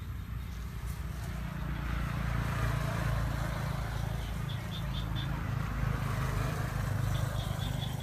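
A motor running steadily with a low rumble. Over it, short high chirps come in two quick runs, four in a row about halfway through and another run near the end.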